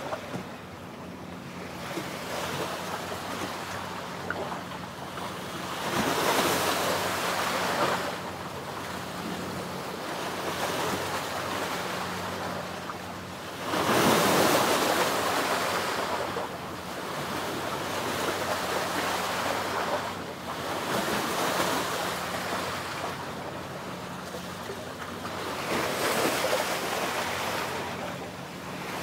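Sea waves washing ashore in swells every few seconds, the loudest about fourteen seconds in, with wind buffeting the microphone. A faint low engine hum runs steadily underneath.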